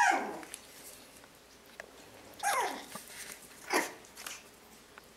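Month-old Yorkshire terrier puppies yelping: three short high cries, each sliding down in pitch, one right at the start, one about two and a half seconds in and a shorter one near four seconds.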